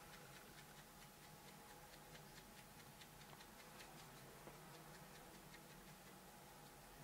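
Near silence with faint, irregular light ticks of a small sponge dabbing black acrylic paint onto a faux-leather passport cover, over a faint steady hum.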